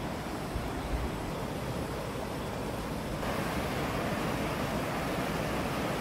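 Steady rush of water, growing louder and brighter about three seconds in, with a couple of low thumps about a second in.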